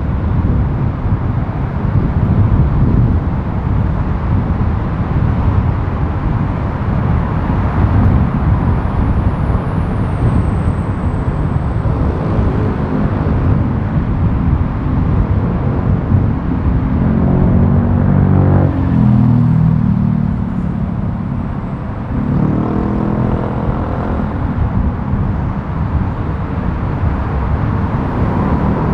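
Road noise and wind rumble from a vehicle driving through city streets, with the pitch of an engine rising and falling twice in the second half.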